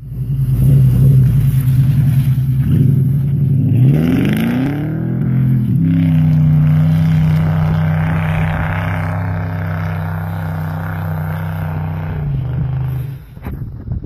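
Ford AU Falcon V8 wagon's engine revving hard as it accelerates away. The revs climb about four seconds in and are held high while the wheels spin through snow, throwing up rooster tails. It eases off near the end.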